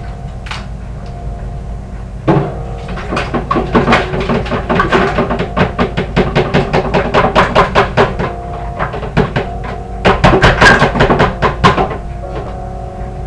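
A utensil clattering fast against a bowl, about six strokes a second, starting about two seconds in, with a short let-up partway and stopping near the end. Classical piano music plays underneath.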